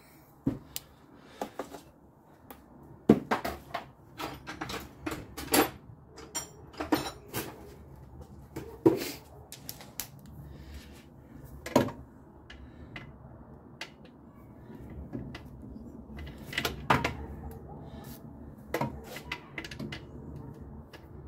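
Scattered sharp metallic clicks and clanks of a socket wrench and deep socket being worked on the alternator's lower mounting bolt. They come in irregular clusters, denser in the first half.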